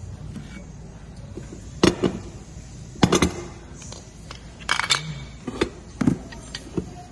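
Metal alternator parts and tools clinking and knocking together as an alternator is reassembled: irregular sharp knocks and short metallic rattles, the loudest about two and three seconds in, over a low steady hum.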